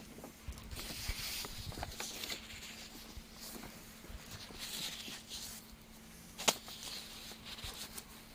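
Faint handling sounds of hands working a check valve into Tygon tubing with an Allen wrench: soft rubbing and rustling with scattered light clicks, and one sharper click about six and a half seconds in. A steady low hum sits underneath.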